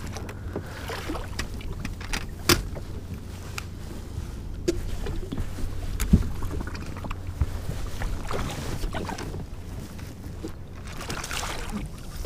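Water lapping against the hull of a bass boat, with wind rumbling on the microphone and a few sharp knocks, the loudest about two and a half and six seconds in.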